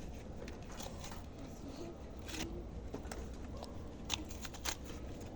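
Firewood being handled and stacked: scattered light knocks, clacks and rustling of logs and sticks, with a few sharper clacks around the middle and near the end.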